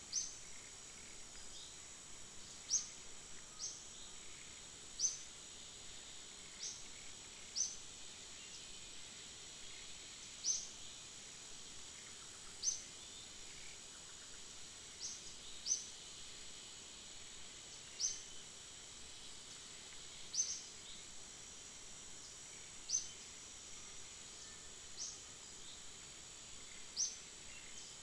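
Forest ambience: a steady, high insect drone, with a short, sharp, high chirp every second or two at uneven intervals.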